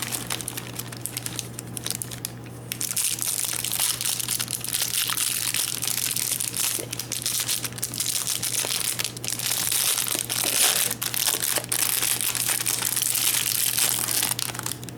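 Packaging being unwrapped by hand to free a small item: continuous crinkling and rustling full of small crackles, with a short lull about two and a half seconds in.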